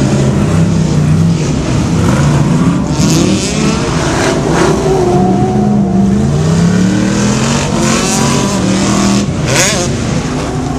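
Off-road truck's engine revving hard as it drives around a dirt course, its pitch rising and falling repeatedly with each burst of throttle.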